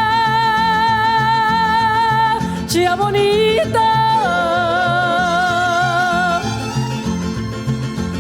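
Mariachi ensemble playing: long melody notes with vibrato over a steady, repeating guitarrón bass pattern, with a quicker melodic run about three seconds in.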